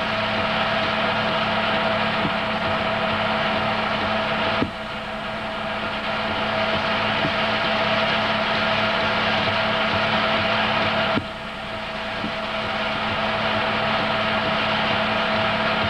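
Steady whir of a home-movie film projector running, with a constant hum tone in it; the sound drops suddenly twice, about four and a half and eleven seconds in, and slowly builds back up each time.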